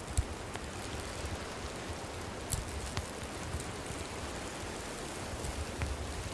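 Wood campfire burning with a steady hiss and a few sharp crackling pops. A low rumble swells near the end.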